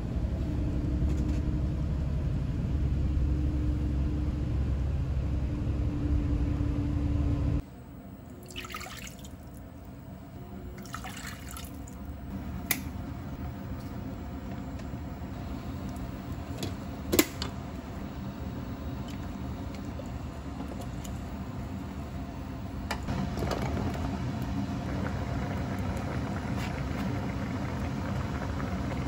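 Steady low rumble of a moving vehicle heard from inside the cabin, which cuts off abruptly after about seven and a half seconds. Then a metal spoon clinks a few times against a frying pan as seasoning is stirred into liquid, and near the end tteokbokki sauce bubbles at the boil in the pan.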